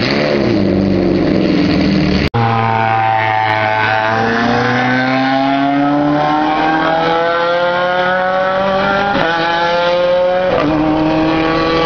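A Ferrari F430 race car's V8 revved, the revs falling away. After an abrupt cut, a race car accelerates hard, its engine note climbing steadily for several seconds, then dropping and climbing again twice near the end in quick upshifts.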